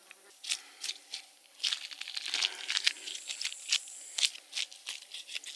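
Knife cutting the head off a freshly caught chub: an irregular run of crunching and scraping clicks as the blade works through the fish, busiest about two to three seconds in.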